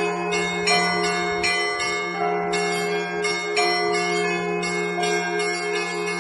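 Russian Orthodox bell ringing (zvon) by one bell ringer on a set of monastery bells. Small, higher bells are struck in a quick, rhythmic pattern, about two or three strikes a second, over the continuous hum of a low bell.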